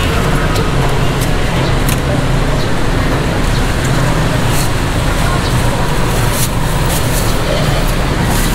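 Steady street-traffic noise with a low rumble, with a few light clicks over it.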